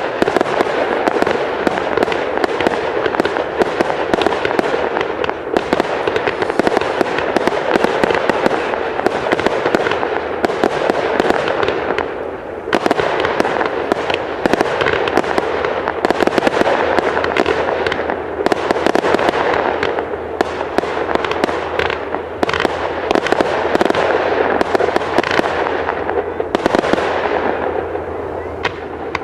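Fireworks display: a dense, unbroken run of bangs and crackling from aerial shells, thinning slightly near the end.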